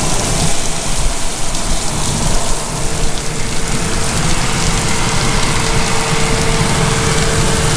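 Heavy wind-driven rain of a severe thunderstorm, a loud steady downpour. A faint steady hum joins about three seconds in.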